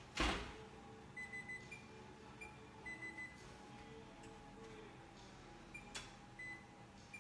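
Short, high electronic beeps at irregular spacing as the keys of a kitchen timer are pressed to set it. A thump comes just after the start and a sharp click about six seconds in.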